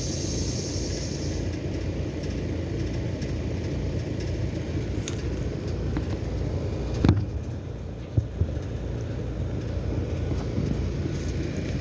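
Two-ton Trane XR15 air-conditioner outdoor unit running with a steady low rumble. A single sharp clunk comes about seven seconds in, with a brief drop in level and two smaller knocks just after.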